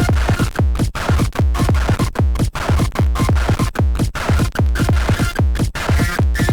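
Electronic dance music, techno-like, with a fast, steady kick drum over a constant deep bass.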